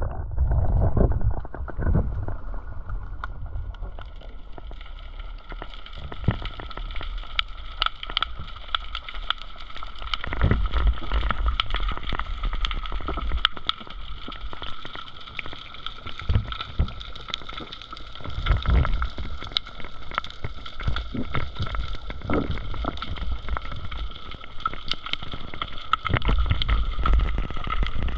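Underwater sound heard through a submerged camera: dense crackling and clicking, with a faint steady hum of several tones and repeated low rumbles of water moving against the camera.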